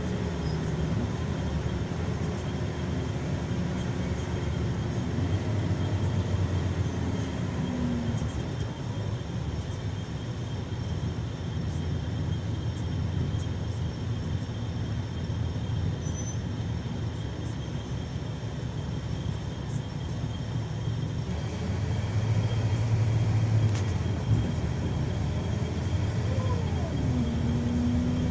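Scania K340EB coach running at road speed, heard from inside the passenger cabin: a steady engine drone mixed with road and tyre noise, swelling a little louder about three quarters of the way through.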